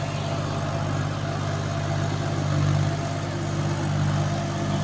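Massey Ferguson 254 4WD tractor's diesel engine running steadily under load as it pulls a cultivator through flooded paddy mud.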